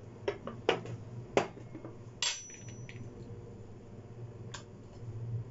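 About half a dozen light knocks and clinks of kitchen utensils handled on a tabletop: a metal teaspoon and a coffee container set down and a glass French press carafe shifted on a digital kitchen scale. One clink just over two seconds in rings briefly.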